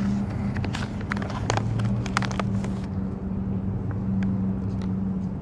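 Plastic dog-treat pouch crinkling and crackling as it is handled, thickest in the first half, over a steady low hum.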